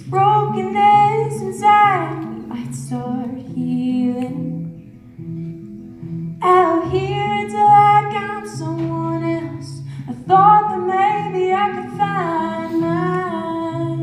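A song: a woman's voice singing over plucked acoustic guitar, in three sung phrases with short guitar-only gaps between them.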